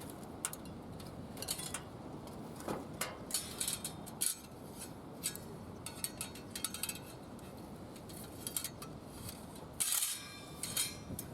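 Light metallic clinks and taps at irregular intervals, with a thicker cluster near the end, over a steady low background hiss.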